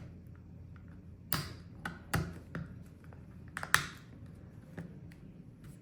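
Small plastic parts of an HTC Vive Tracker 3.0 clicking and snapping as a piece is pressed back into the housing: several sharp clicks with a few lighter ticks between them, the loudest a little under four seconds in.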